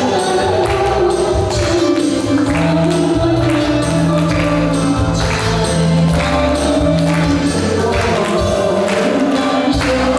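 Music with a steady beat: a wavering melody line over bass notes and regular percussion strokes.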